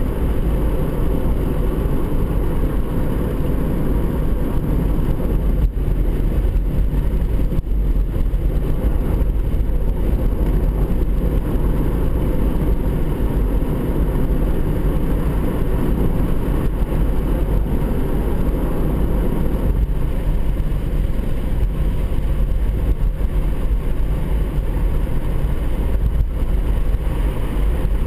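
Honda CR-Z cruising at steady speed, heard from inside the cabin: an even, low rumble of tyre and road noise mixed with the engine, with no change in pace.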